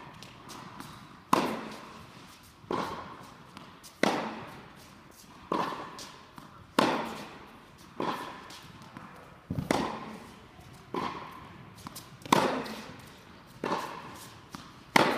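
Tennis rally: sharp pops of rackets striking the ball and the ball bouncing on the hard court, one about every 1.3 to 1.5 seconds. Each pop rings on briefly in the echoing indoor tennis hall.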